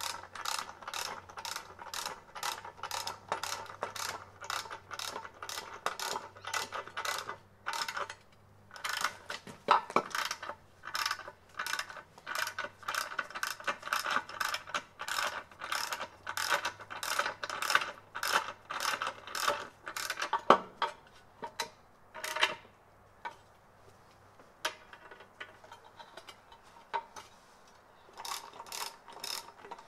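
Ratchet wrench clicking in quick, even strokes, about three a second, as it turns the forcing screw of a bushing press that draws a rubber bushing through a lower control arm. The clicking breaks off briefly about eight seconds in and starts again. After about twenty seconds it thins to a few scattered clicks and taps.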